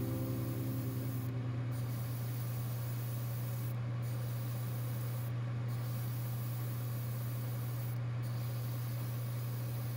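Airbrush spraying primer with a steady hiss over a steady low machine hum. The hiss briefly dips four times.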